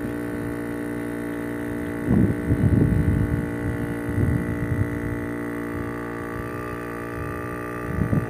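Battery-powered electric air pump running with a steady hum, then cutting off abruptly at the very end. Whether it shut itself off automatically or through a short in the battery wiring is in doubt.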